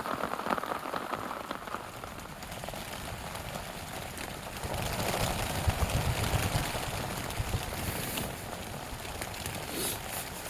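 Steady rain falling on a tent, a dense patter of drops that swells louder for a few seconds in the middle.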